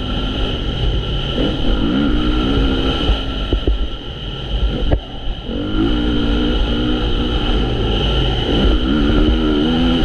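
Honda CRF450 motocross bike's single-cylinder four-stroke engine being ridden hard, the pitch climbing twice under acceleration and dropping back off the throttle between. A couple of sharp knocks come about four to five seconds in.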